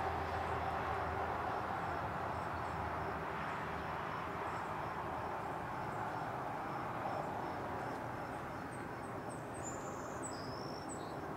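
Calm outdoor ambience: a steady low hiss of background noise, with a faint insect chirping in an even repeating rhythm. A bird chirps a few times near the end.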